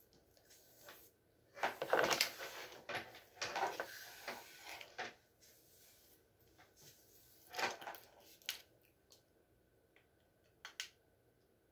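Flat iron being handled and drawn through hair: irregular rustling swishes, loudest about two seconds in and again near eight seconds, then a few light clicks and knocks like the iron's plates clapping shut.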